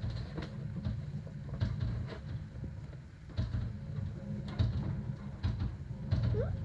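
Hurricane-force wind buffeting a house in a deep, surging rumble, with repeated knocks, bangs and rattles from the straining structure and debris.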